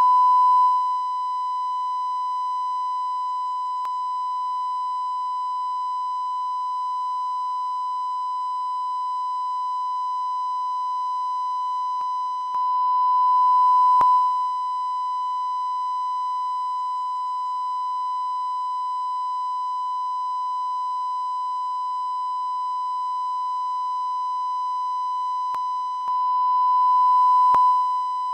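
Steady test tone of a colour-bar test pattern, one unbroken beep-like pitch. It swells louder twice, near the middle and near the end, and each time drops back suddenly.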